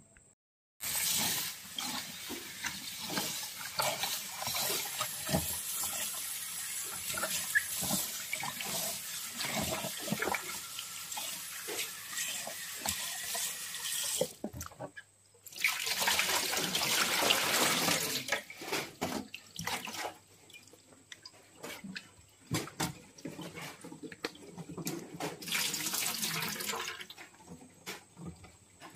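Kitchen tap water splashing into a plastic basin of leafy greens in a stainless steel sink. It comes in spells: a long run to about halfway, a short break, a loud burst, then a quieter stretch of hands sloshing the leaves, with light knocks, and another run near the end.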